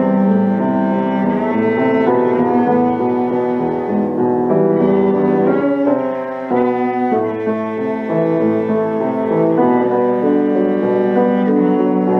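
Cello and piano playing a classical sonata together, the cello holding long bowed notes over a moving piano part.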